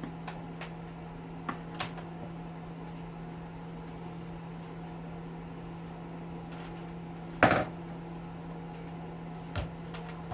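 Steady low hum under scattered small clicks and knocks of hand tools and parts being handled in a teardown, with one loud sharp clack about seven and a half seconds in and a smaller knock near the end.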